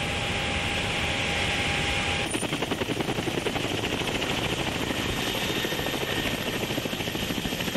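A steady hiss with a thin, steady whistling tone. About two seconds in, this gives way to a helicopter's rotor blades beating in a rapid, even chop that goes on steadily.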